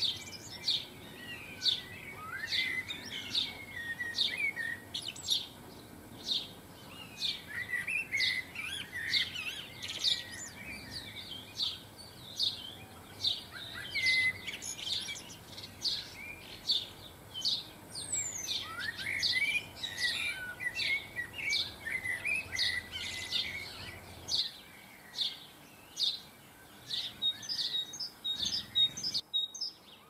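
Small garden songbirds chirping and twittering: a steady run of sharp chirps, about two a second, mixed with bursts of twittering song.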